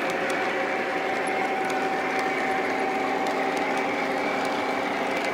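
Electric model freight train running close by: a steady whir of its motor and gearing, with the wheels rolling along the track and a few faint ticks.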